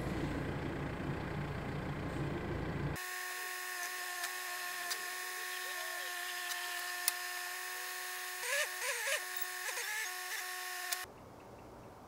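Telehandler running under load as its boom lifts a heavy oak frame section upright. Its low engine rumble changes abruptly about three seconds in to a steady high whine with a few clicks, and this cuts off near the end, leaving a much quieter hiss.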